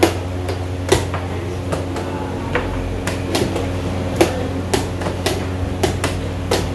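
Chess pieces being set down on a board and chess clock buttons being slapped in a quick game: a string of sharp wooden knocks, about one every half-second to second, the loudest at the start and about four seconds in. A steady low hum runs underneath.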